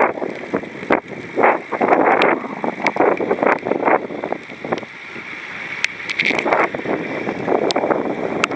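Wind gusting on a camera microphone moving at cycling speed, over the hiss of bicycle tyres on wet asphalt, with scattered sharp ticks.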